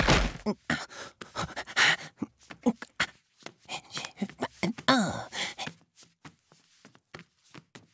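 A boy's voice huffing and panting in quick, irregular breathy bursts, with a short voiced cry about five seconds in; the bursts thin out over the last two seconds.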